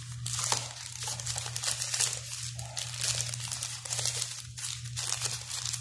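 Thin frosted plastic bag crinkling and crackling in irregular bursts as it is torn open and a phone case is pulled out of it.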